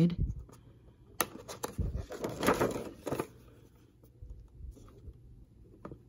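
Poker tool from a snap button kit pressed through holes in layered laminated plastic: two sharp clicks a second or so in, then a stretch of crinkly rustling of the stiff plastic sheets.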